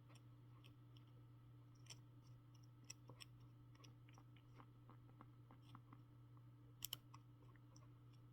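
Near silence: a steady low hum with faint scattered clicks, the loudest a close pair about seven seconds in.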